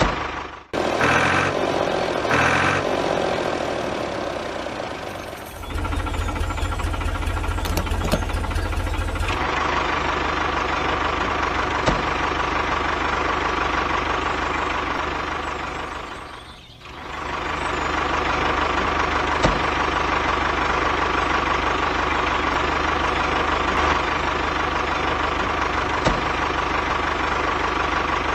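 Tractor engine running steadily at idle, a sound track laid over toy tractor footage. It dips and restarts about half a second in and again around 17 s, with a deeper-sounding stretch from about 6 to 9 seconds.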